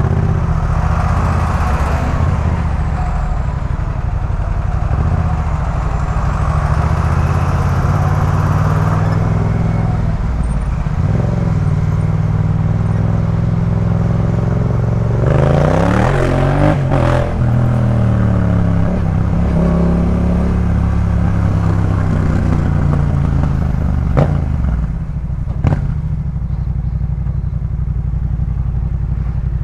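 Yamaha MT-07's 689 cc parallel-twin engine running through a Jeskap K4 full aftermarket exhaust, holding a steady note; about halfway through the revs climb and fall quickly, and two sharp clicks sound near the end.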